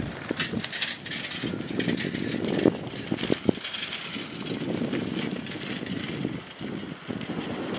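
Bicycle rolling past close by on a rough road, the tyres running over the surface with scattered clicks and knocks from the bike.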